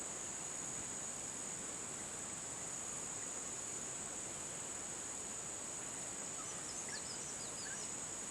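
Steady, high-pitched drone of insects, crickets or cicadas, in the surrounding forest. Faint, short, high chirps come in over it during the last couple of seconds.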